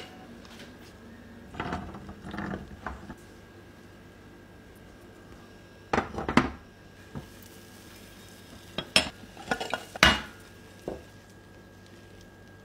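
Nonstick frying pan and plate clattering: several short clusters of knocks and clinks as the pan goes back onto the gas stove's metal grate and the omelette is handled in it, over a faint steady hum.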